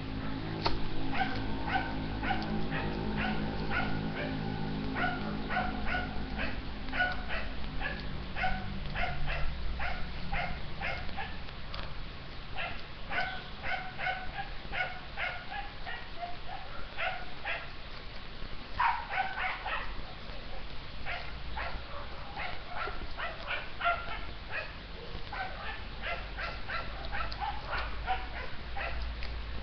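A dog barking over and over in short, high yaps, a few a second. A low steady hum lies underneath for the first several seconds.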